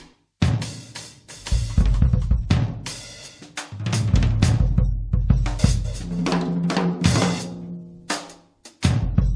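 Background music driven by a drum kit: bass drum, snare and cymbal hits over a deep bass line, with a few sudden breaks where it cuts off and restarts.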